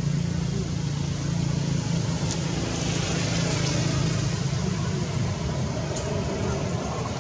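A vehicle engine running steadily, its low hum over a background hiss, easing off a little toward the end. Two faint clicks, about two seconds and six seconds in.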